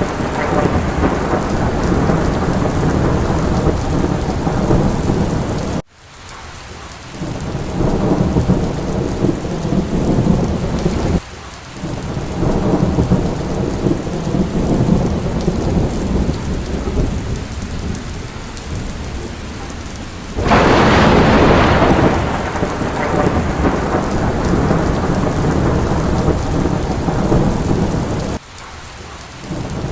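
Heavy steady rain with deep rolling thunder rumbling under it, and a louder burst of thunder about twenty seconds in. The sound drops away abruptly and briefly three times, at about six, eleven and twenty-eight seconds.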